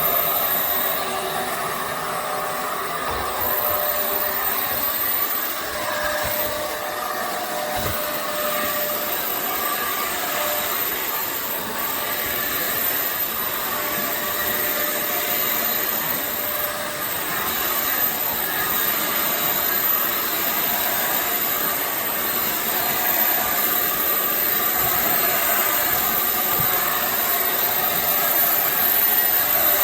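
Vacuum cleaner running steadily: a constant rush of airflow with a thin, high whine over it.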